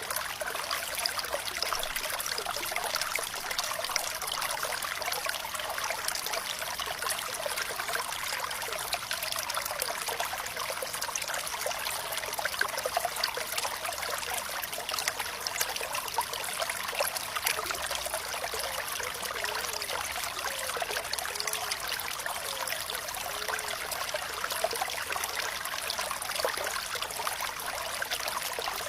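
Flowing water trickling steadily, with a dense bright splashing and little low rumble, and a few small gurgles past the middle.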